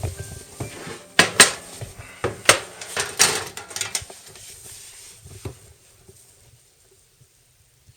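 Thin sheet-metal pieces clanking and rattling as they are handled, a quick run of sharp metallic clatters with a short ring, dying away after about five seconds.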